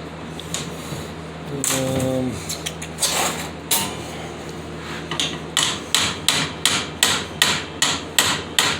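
A tool knocking on the metal grinder stand: some scattered clatter, then from about halfway in a steady run of sharp strikes, about two to three a second.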